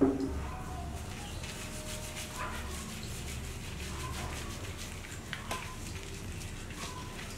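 A short, loud animal call right at the start, then a few faint brief squeaks and scattered soft clicks of a wet baby macaque being handled and soaped.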